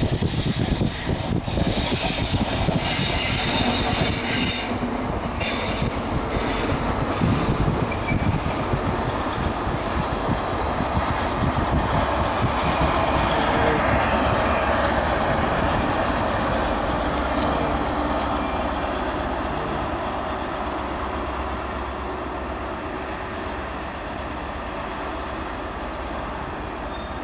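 GWR InterCity 125 (HST) with MTU-engined Class 43 power cars running past. For the first several seconds there is loud hiss from the wheels and rail, with clicks over the track joints. Then comes a steady diesel and wheel rumble, loudest as the rear power car goes by about halfway through, which slowly fades as the train pulls away.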